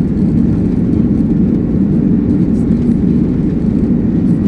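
Airplane taking off: a loud, steady low rumble of engine and airframe noise.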